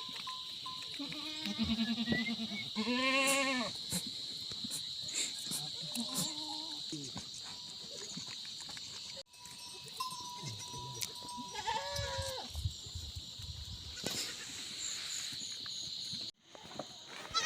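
Goats bleating several times in wavering calls over a steady, high-pitched drone of insects.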